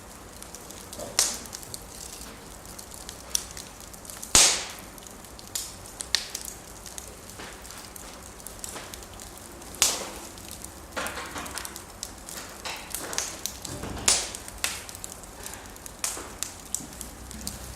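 Fire crackling in a fireplace: irregular sharp pops and snaps over a soft steady hiss, with the loudest snaps about four, ten and fourteen seconds in.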